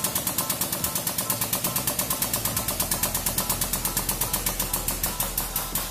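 Hydraulic press running as its ram presses down on eggs: a fast, even clicking of about ten ticks a second over a steady low hum.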